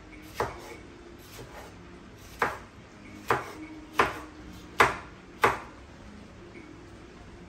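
Knife chopping vegetables on a cutting board: about six sharp, separate strikes, less than a second apart, stopping a couple of seconds before the end.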